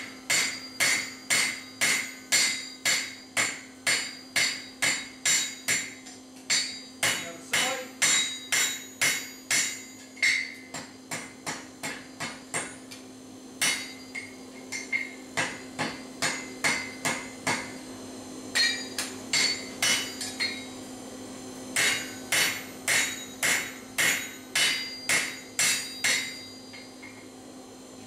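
Blacksmith's hand hammer striking a red-hot steel bar on an anvil at about two blows a second, each blow followed by a bright ring, in runs broken by short pauses and stopping near the end. A steady hum runs underneath.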